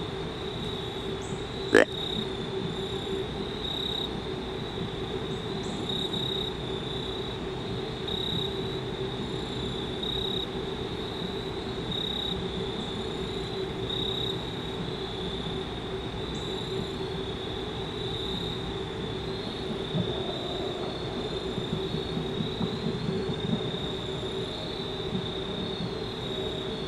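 Insects calling steadily, a high buzzing that swells about every two seconds, over a low distant rumble. A single sharp click about two seconds in.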